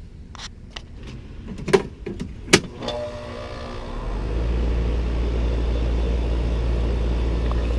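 Lennox heat pump condenser starting up: a few clicks and a sharp clack about two and a half seconds in, then the compressor and fan come on about a second later and settle into a steady low hum, running as they should with the new defrost board.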